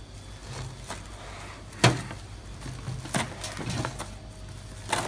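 Plastic cling wrap crinkling and rustling as it is pulled and pressed tightly around a raw brisket on a tray, with a few sharp knocks, the loudest about two seconds in.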